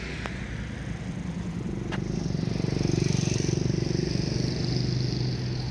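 A small motor engine running past, swelling to its loudest about three seconds in, then easing into a steady low hum.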